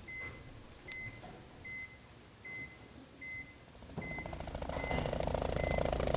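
A short electronic beep repeating steadily, eight times at about one beep every 0.8 seconds. About four seconds in, a fast-pulsing buzzing swell rises underneath and grows louder.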